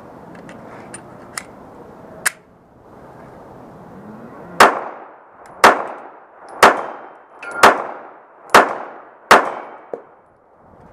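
Glock 42 .380 ACP pocket pistol firing six shots about a second apart, using Winchester white box full metal jacket rounds. Before the shots come a few sharp metallic clicks as the pistol is handled and readied.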